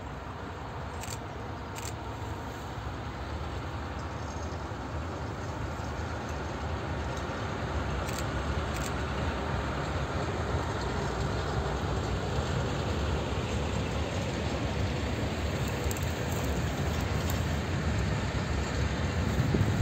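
ST48 diesel shunting locomotive running as it hauls a train of hopper wagons past, growing steadily louder, with the wagons' wheels rolling on the rails behind it.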